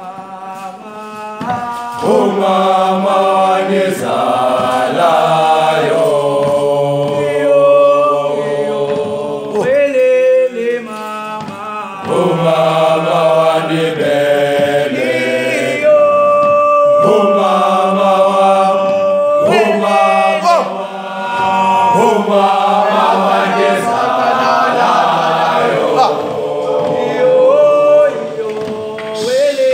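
A group of students singing together in harmony, with long held notes. The singing drops back briefly twice, about ten and twenty seconds in.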